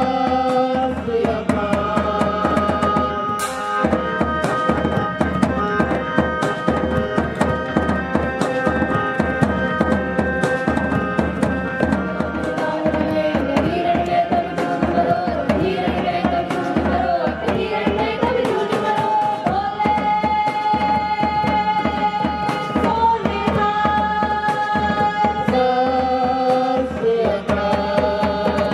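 A group of voices sings a Sikh shabad (devotional hymn), with held notes from a harmonium and a steady, fast drum beat.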